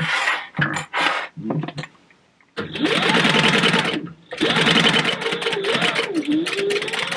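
A sewing machine stitching a seam, running in two stretches with a short stop about four seconds in; its motor pitch rises and falls as the speed changes. Short, broken sounds come in the first two seconds, before the machine runs steadily.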